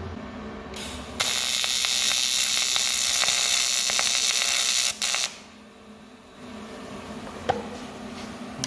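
AC TIG welding arc on the cast-aluminium bellhousing of a 4L80E transmission, buzzing harshly for about four seconds after a brief first strike, then cutting off, with a short blip right after. The casting is not preheated and the arc is slow to break into it.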